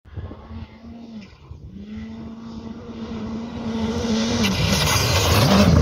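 Rally car at speed on a gravel stage, coming closer and growing steadily louder, its engine held at high revs with a brief lift about a second in. Near the end the engine note dips and wavers as gravel and dust noise builds.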